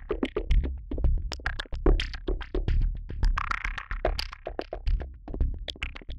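Electronic music: a synthesizer track with a quick drum-machine beat over a steady bass.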